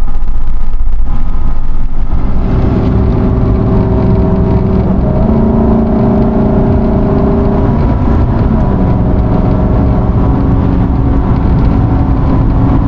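Car driving, heard from inside: a loud low road-and-wind rumble, then a steady engine drone that shifts pitch a couple of times.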